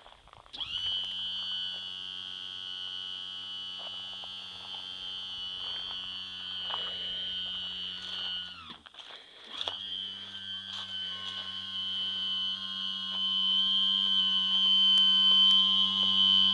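Mercury 115 outboard's electric power trim and tilt motor running. It gives a steady whine for about eight seconds as the engine tilts up, winds down with a falling pitch, then runs again for about another eight seconds, growing louder near the end.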